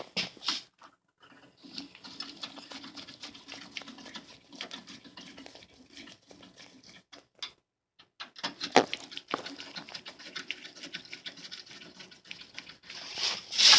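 Hand tool working out the small screws of a car's front grille: a run of rapid small clicks and scraping, with a sharp knock about nine seconds in and a louder scrape near the end.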